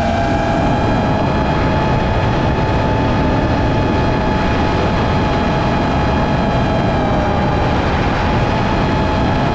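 FPV quadcopter's brushless motors and propellers whining steadily in flight, a few held tones over heavy wind rush on the on-board camera's microphone.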